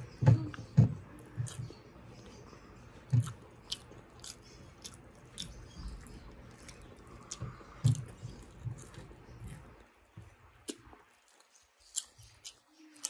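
Close-up chewing of chicken and rice: irregular wet mouth clicks and smacks, thinning to a few faint clicks near the end.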